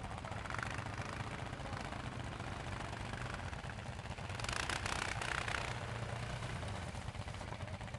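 Several ATV engines running at low revs in a steady drone, with a louder rush of noise for about a second and a half around halfway through.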